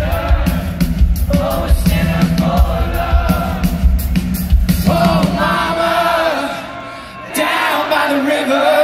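Live rock band playing, with two singers trading lines at microphones over drums and bass. Around the middle the drums and bass drop out, leaving the voices nearly alone.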